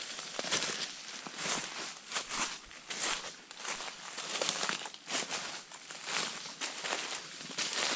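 Footsteps crunching through dry leaves and undergrowth, an irregular crunch roughly every half second.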